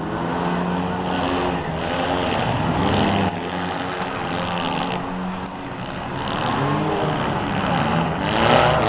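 Several small demolition-derby cars' engines running and revving at once, their pitches rising and falling over one another.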